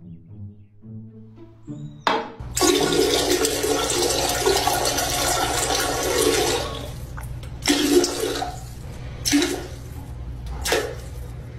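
Soft background music, then a loud rush of water starting about two seconds in and lasting some four seconds, followed by three shorter, weaker surges.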